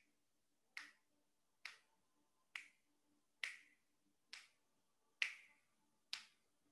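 Faint, sharp clicks at a steady pace, a little under one a second, about eight in all, keeping time during a held breath.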